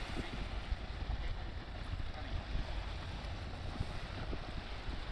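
Wind buffeting the microphone over the steady wash of small waves breaking on a sandy beach.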